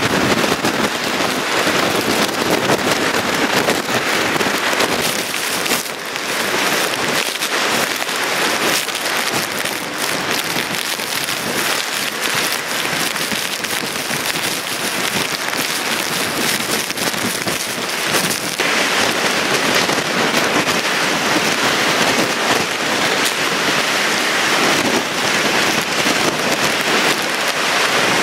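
Heavy rain in a hurricane, a loud, steady hiss without a break.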